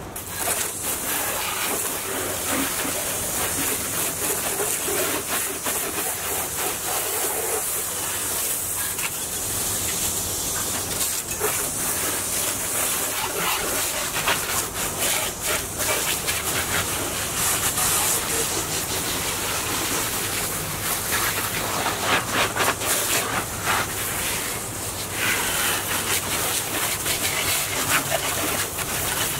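Garden hose spray nozzle spraying water over a personal watercraft's hull and seats in a steady hiss, rinsing off salt after a ride in salt water.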